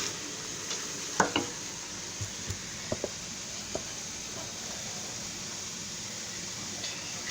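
Onions and broccoli slaw sizzling steadily in olive oil in a pot, with a few light knocks, the loudest about a second in.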